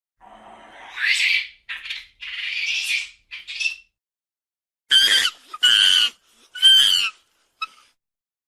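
Monkeys calling: harsh, hissing screeches over the first few seconds, then three loud, shrill squeals about a second apart.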